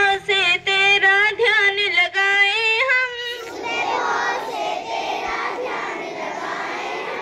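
A large group of children singing a prayer together in unison, on long held notes. About three seconds in, the clear sung line gives way to a blurred mass of many voices.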